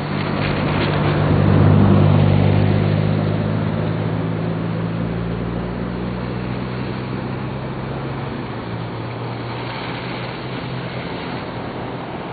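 A motor vehicle's engine hum, loudest about two seconds in and then slowly fading, over the steady rushing of a flooded river.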